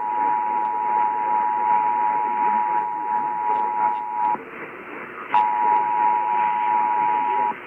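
Emergency Alert System two-tone attention signal (853 Hz and 960 Hz together), a steady dual tone heard through hissy radio audio. It cuts out about four and a half seconds in, comes back with a click about a second later, and stops shortly before the end.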